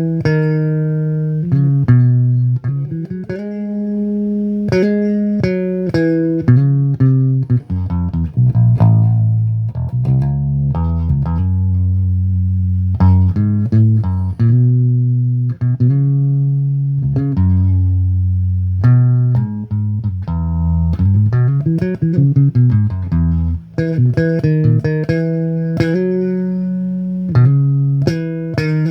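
Electric bass guitar played solo, a melodic run of plucked notes and double-stops in a worship tune, with a slide up and back down in pitch about three quarters of the way through.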